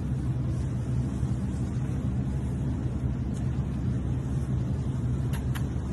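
Steady low rumble, with two faint clicks a little after five seconds in.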